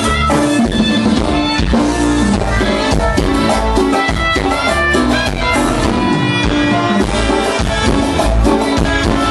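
Live Latin dance band playing tropical dance music, drum kit and percussion keeping a steady beat under held instrumental notes.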